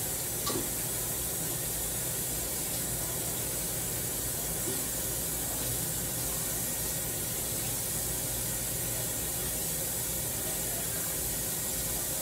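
Steady kitchen hiss with a faint low hum underneath, unchanging throughout, and one light click about half a second in.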